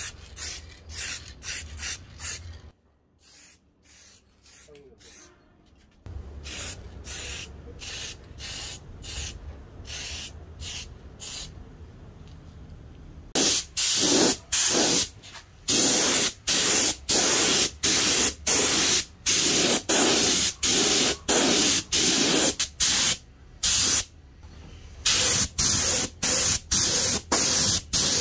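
Short hissing bursts from a spray nozzle, repeated about one and a half to two times a second, pausing briefly early on and becoming much louder about halfway through.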